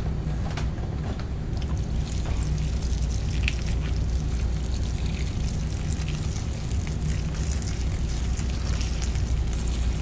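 Flat, uncarbonated 7-Up pouring in a steady stream from a plastic soda bottle into a plastic bag of popcorn, over a steady low hum.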